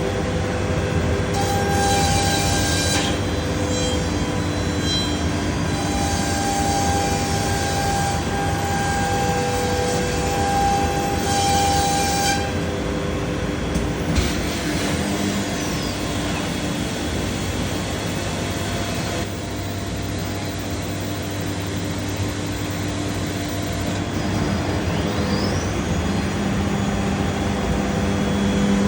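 Biesse Rover K CNC router working solid wood: a steady low hum under the spindle's high whine, with three bursts of cutting noise in the first half as the bit mills the wood. About halfway the spindle winds down with a falling whine, and near the end it spins back up with a steeply rising whine.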